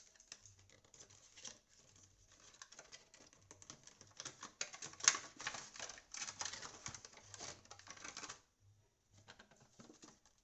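Packaging of a small microphone box being opened and handled by hand: a run of crackling, rustling and small taps that mostly stops about eight and a half seconds in.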